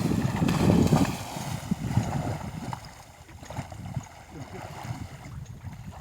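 Wind buffeting the microphone in low, irregular rumbles, strongest in the first two seconds, then easing.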